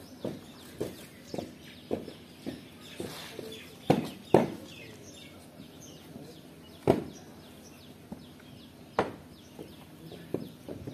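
Boots marching, short even steps about two a second, then louder sharp stamps twice about four seconds in and again later. Small birds chirp in the background.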